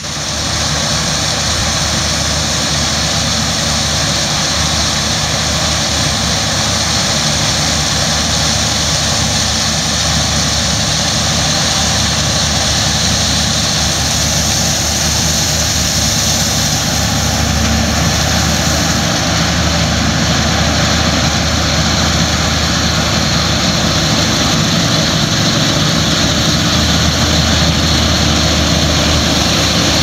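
Claas Lexion combine harvester at work cutting rapeseed: a steady engine drone under a strong, even hiss.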